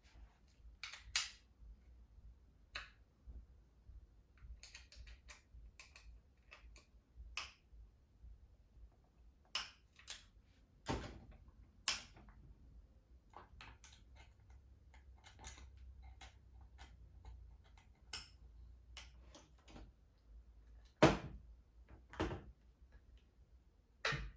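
Scattered clicks and light knocks of parts being taken off and handled on an air rifle, with a few sharper knocks, the loudest about 21 seconds in.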